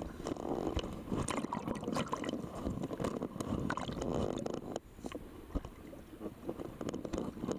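Sea water splashing and sloshing right at a camera held at the waterline as scuba divers jump in from a boat, with a big entry splash at the start; the churning eases off after about five seconds.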